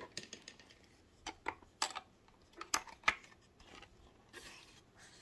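Hard plastic parts of a Talon Fighter toy clicking and knocking as it is handled: a handful of light, separate clicks over a couple of seconds, then a short brushing sound near the end.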